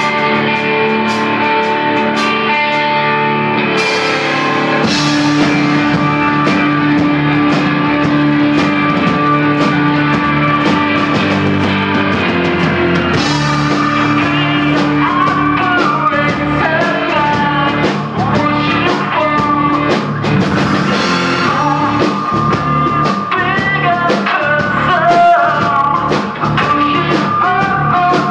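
Live rock band playing: electric guitars ringing out, with the bass and drums coming in about five seconds in. A male voice sings over the band from about halfway through.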